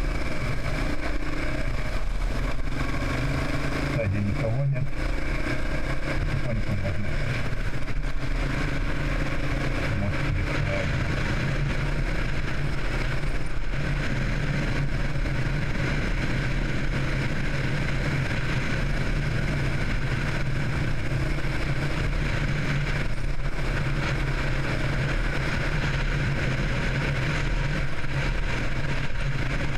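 Vehicle engine and road noise while driving, a steady unbroken hum.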